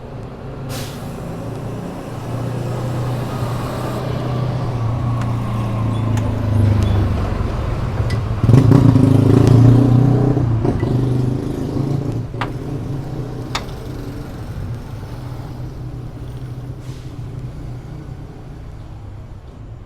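A motor vehicle's engine running close by, growing louder to a peak about halfway through and then fading away. Two sharp metallic clicks come just after the peak.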